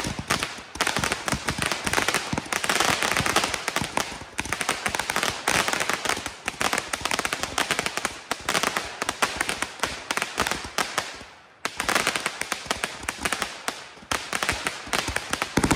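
Consumer firework cake firing in fan-shaped volleys: rapid pops with a dense crackle of stars. The firing thins out about eleven seconds in, then picks up again.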